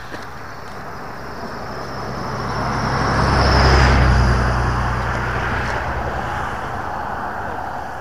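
A road vehicle passing close by on the road, its engine hum and tyre noise swelling to a peak about halfway through and then fading away.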